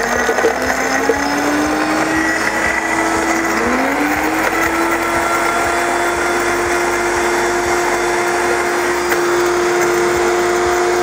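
Vosco HS-200 bar blender, which has no sound enclosure, running at high speed and crushing ice cubes without water. Its motor whine climbs in pitch, dips briefly about four seconds in, then rises again and holds steady over the noise of the ice being smashed.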